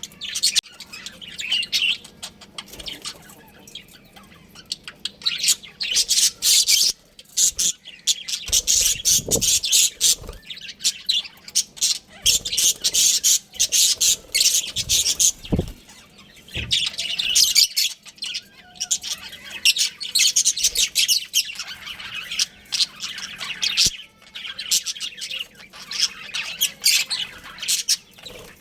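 Several budgerigars chattering in bouts of rapid high chirps, with two brief low thumps about a third of the way in and just past halfway.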